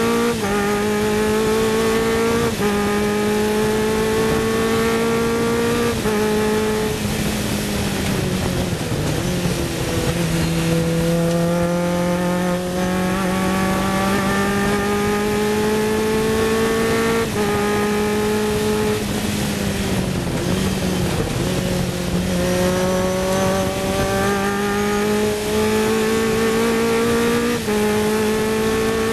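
Sports 2000 race car engine at full throttle, heard onboard: the pitch climbs through the gears with several quick upshifts, and twice it sags and picks up again through corners. A steady rush of wind runs underneath.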